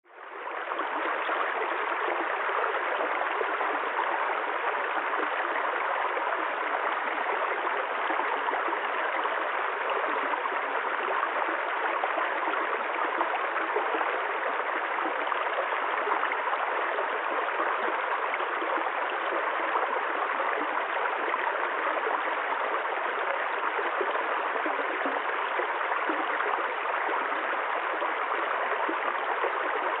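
Shallow rocky stream running over stones, a steady rushing and babbling of water that fades in over the first second.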